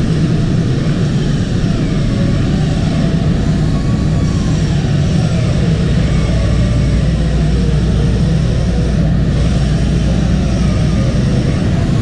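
Loud, steady din of a ship's engine room: the engines and other machinery running, with no break or change.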